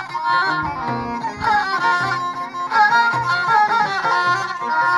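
Middle Atlas Amazigh folk music: a violin held upright on the knee and bowed, playing a wavering, sliding melody over a regular low pulsing accompaniment.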